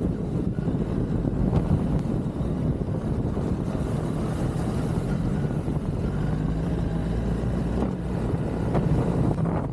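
A BMW R1300GS boxer-twin engine running under way off-road, with wind rushing over the microphone.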